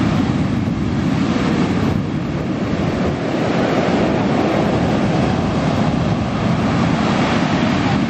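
Sea waves breaking and washing on the shore, with wind rumbling on the microphone, giving a loud, steady rush.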